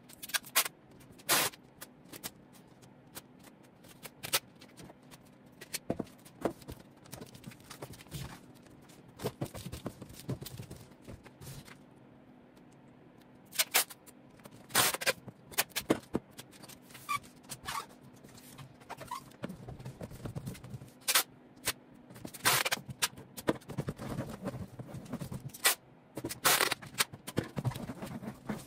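A large cardboard cargo box being packed by hand: irregular scrapes, rustles and sharp knocks as clothes and items are pushed in and the carton is handled.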